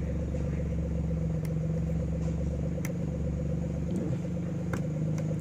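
A steady low machine hum with several fixed tones, with a few faint sharp clicks.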